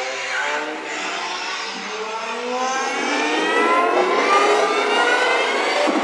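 Electronic dance music in a breakdown with the bass and kick stripped out: short synth tones at first, then layered synth tones sweeping steadily upward in pitch and growing louder, a riser building up toward the drop.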